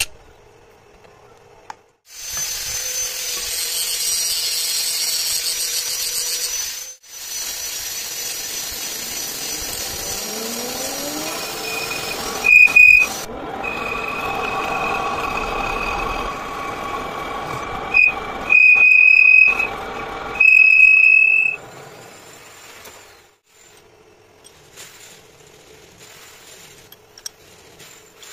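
Metal lathe running while a cutting tool turns a steel disc. In the middle of the cut there is a high, piercing squeal from the tool on the metal, coming in several bursts of about a second each. Near the end the machine stops, leaving light metal clinks.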